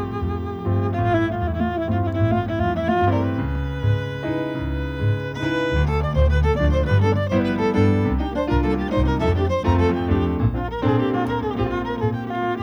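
Instrumental chamber music from a violin, clarinet, double bass and piano quartet, the violin carrying a quick moving melody over a steady bass line.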